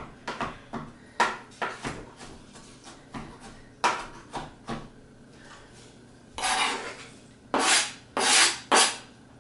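A chef's knife chopping roasted red pepper on a cutting board in a run of short, uneven knocks. Near the end the diced pepper is scraped off the tilted board into a bowl in a few loud scrapes.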